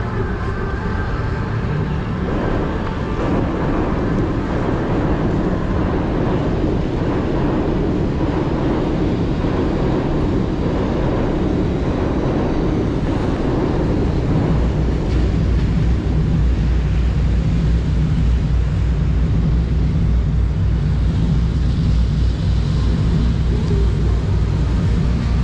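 Traffic on a rain-soaked city street: a steady wash of vehicle and wet-road noise. A deeper steady rumble grows stronger about halfway through.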